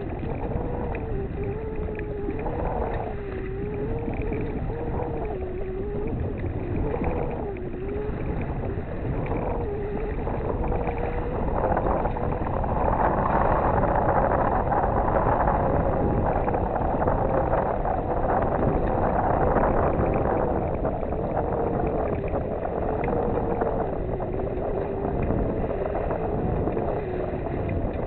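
Steady rush of wind and water aboard a sailboat under way, with a thin wavering whistle running through it. The rush swells louder about halfway through.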